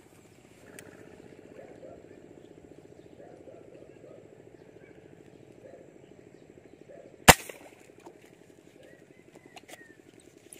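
A single air rifle shot fired at a fish in the water, one sharp crack about seven seconds in.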